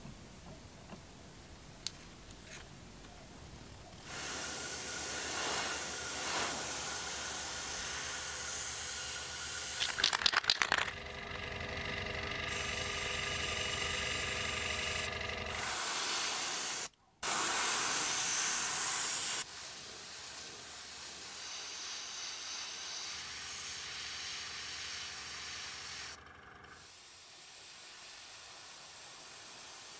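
Airbrush hissing as it sprays paint, starting about four seconds in and running in spells with a brief cut-out midway. A short, louder rattle comes about ten seconds in.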